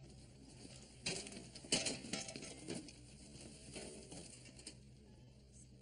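Light knocks and rattles of a loaded hand truck being wheeled out of a shop, loudest about one to two seconds in.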